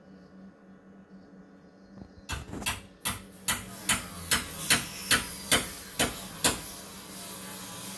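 Hammer blows from renovation work: a quick cluster of strikes, then about nine evenly spaced blows at a little over two a second. A steady noise then starts to build near the end.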